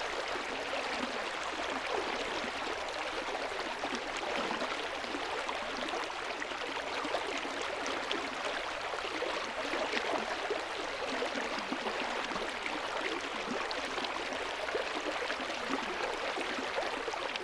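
Rainforest river flowing over rocks: a steady rush and babble of water.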